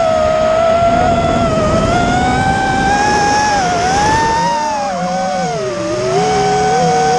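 FPV drone's electric motors whining, the pitch rising and falling with the throttle; two close tones drift apart and back together, and dip lower about three-quarters of the way through.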